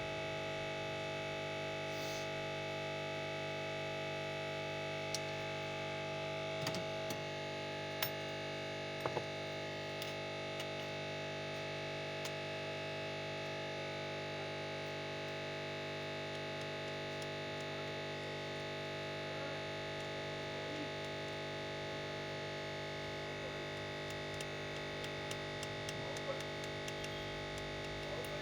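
Background music of steady held tones, with a few faint short clicks over it.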